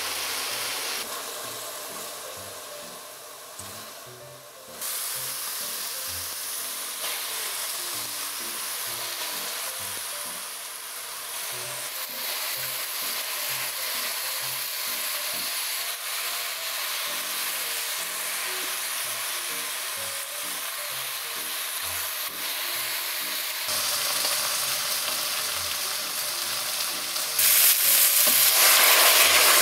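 Sausage slices and shimeji and maitake mushrooms sizzling in oil in a black pot, a spatula stirring and scraping through them. The sizzle grows louder near the end. Soft background music plays underneath.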